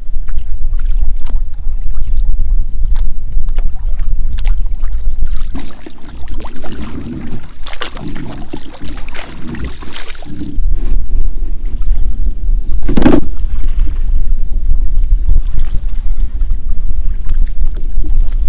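Kayak paddle strokes splashing through shallow water, over a steady low rumble of wind on the microphone. One sharp knock comes about thirteen seconds in.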